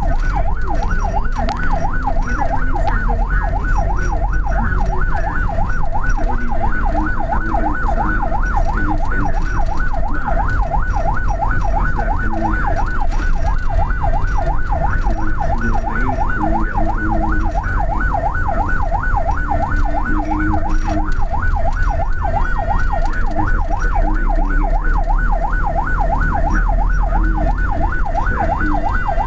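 Ambulance electronic siren on yelp, sweeping rapidly up and down about three or four times a second without a break. It is heard from inside the moving ambulance's cab, with a steady low engine and road rumble underneath.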